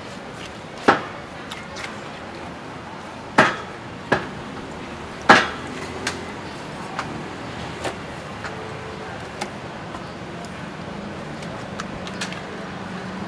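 Butcher's cleaver and knife knocking on a stainless steel table while cutting up pork. There are four sharp knocks in the first six seconds, then lighter taps and clinks, over steady background noise.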